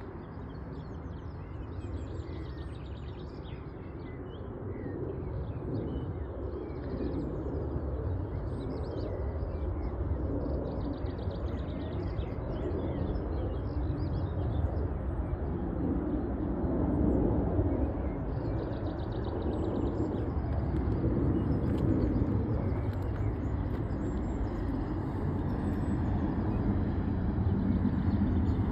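Outdoor ambience: a steady low rumble that grows gradually louder, with faint bird chirps and trills over it.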